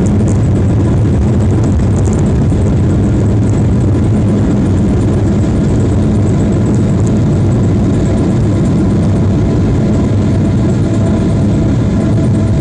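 Steady, loud rumble of a Boeing 777-300ER's engines and airflow heard from inside the cabin during landing, with a few light cabin rattles in the first few seconds.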